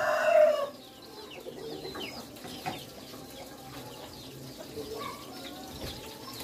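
Village chickens: a rooster's crow ends within the first second, then hens cluck now and then against many short, falling chirps from small birds.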